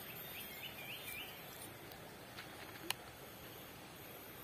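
Faint outdoor stream-side ambience: a steady low rush of flowing water, with a few short bird chirps in the first second or so and a single sharp click a little before three seconds in.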